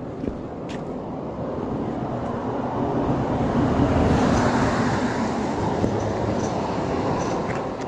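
A motor vehicle passing close by, its tyre and engine noise building to a peak about four seconds in and then fading away.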